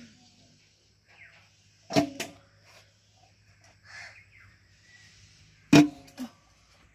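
Stainless-steel vessels clanking as a hot covered steel bowl is lifted out of a steamer and set down in a steel basin: a clank about two seconds in, then the loudest clank near the end with a short metallic ring and a smaller knock right after. Faint handling noise between the clanks.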